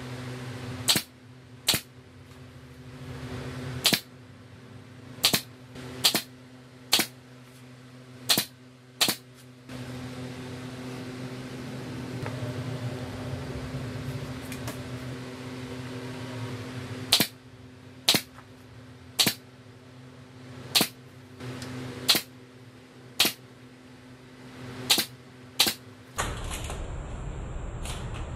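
Pneumatic brad nailer firing about sixteen sharp shots into the pine frame joints, in irregular runs with a pause of several seconds midway, over a steady hum.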